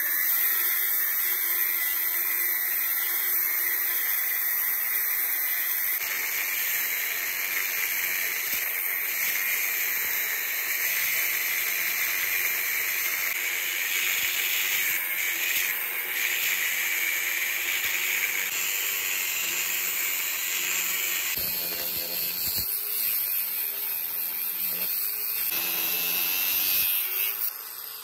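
Electric angle grinder with an abrasive cut-off disc cutting lengthwise along a steel bar, a steady, hissing grind of disc on metal. Near the end the grinding stops and the motor starts to wind down.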